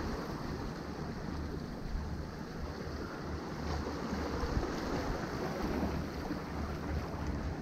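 Small waves washing and splashing against the rocks of a stone jetty, under a steady rumble of wind buffeting the microphone.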